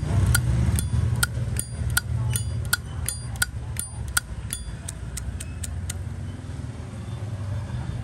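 Zippo lighter lid flicked open and snapped shut over and over: sharp metallic clicks with a brief ring, about two or three a second, stopping about six seconds in. A steady low hum runs underneath.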